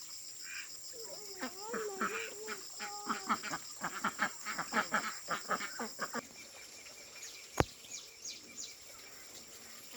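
Ducks calling in a quick, busy run of short notes as they are fed corn, over a steady high whine that cuts off about six seconds in. A single sharp click near the end.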